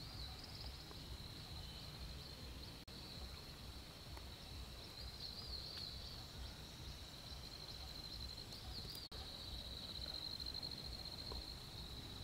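Insects trilling in a steady high drone, with small chirps riding on it and a faint low rumble underneath. The sound drops out for an instant twice, about three and nine seconds in.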